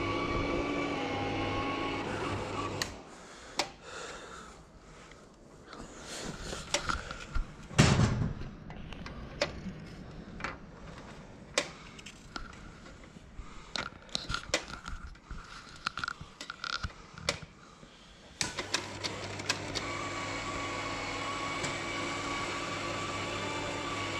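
Carousel slide projector's fan motor humming steadily, then switched off a few seconds in. Scattered clicks and knocks of slides and the round tray being handled follow, with one heavier knock. The fan hums again from about three-quarters of the way through.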